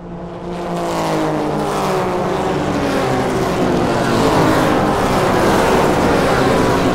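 Car engine running loudly with a race-car-like exhaust note, building up over the first second and then holding steady.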